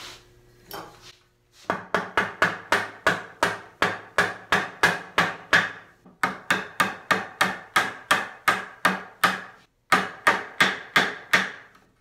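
Quick, steady hammer blows on wood, about three or four a second, with two short pauses, driving a tenon home into its mortise to close the joint.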